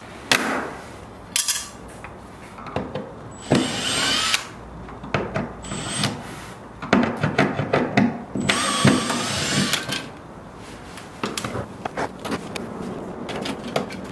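Small cordless electric screwdriver running in two short bursts of about a second each, backing out the screws of a wall outlet. Plastic clicks and rattles from the outlet and its cover plate come between the bursts.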